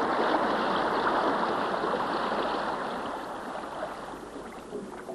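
Fast river water rushing through white-water rapids as a dense, steady hiss that fades gradually over the second half.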